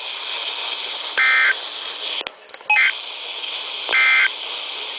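Three short electronic tone bursts, each about a third of a second long and spaced about a second and a half apart, over the steady hiss of a NOAA weather radio broadcast. A brief click and dropout come between the first two bursts.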